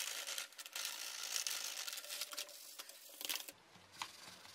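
Plastic bag of loose substrate crinkling and rustling as the substrate is poured and spread into small plastic tubs, with many small crackles; it dies down about three and a half seconds in.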